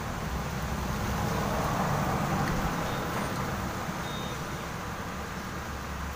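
Background motor-vehicle noise: a steady low hum and rushing, swelling for a couple of seconds from about a second in, as a vehicle passes, then easing back.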